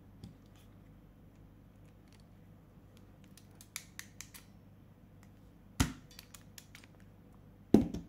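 Hand crimping pliers crimping a 6 mm² wire-end ferrule: a few light clicks, then two sharp clicks about two seconds apart, the second the loudest.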